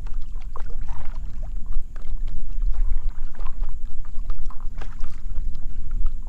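Water lapping and knocking against the hull of a stand-up paddleboard used as a fishing kayak, in scattered short splashes and clicks over a steady low rumble.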